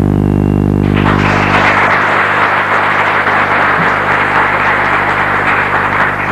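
Audience applauding, starting about a second in and thinning out near the end. Before it, a low steady electrical hum is heard.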